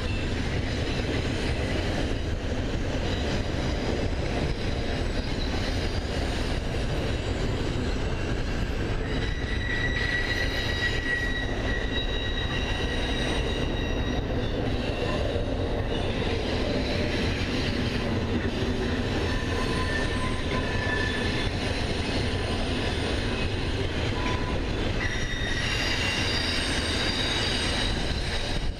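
Double-stack intermodal freight cars rolling steadily past, with intermittent high-pitched wheel squeal on the rails, strongest about ten seconds in and again near the end.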